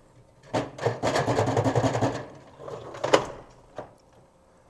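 Drawer of an old metal tool chest being pulled open: a rattling, scraping slide for about a second and a half, then a sharp clank about three seconds in and a lighter click after it.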